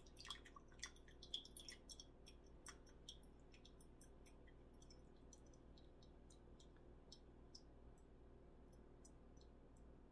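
Faint drips and light clicks of tea being poured off from a small teapot into a cup: a quick cluster in the first three seconds, then a few scattered drops and ticks, otherwise near silence.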